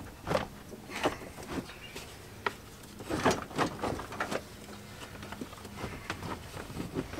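Irregular clicks, knocks and hard-plastic rattles from the truck's partly removed dashboard and heater box being worked by hand, busiest in the middle.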